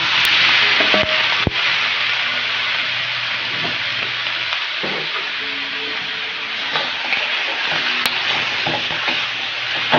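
Raw pork pieces hitting hot oil in a wok with sautéed garlic, onion and shrimp paste, starting to sizzle loudly all at once and sizzling steadily on while being stirred with a spatula. A couple of sharp knocks of the bowl and utensil against the wok come about a second in.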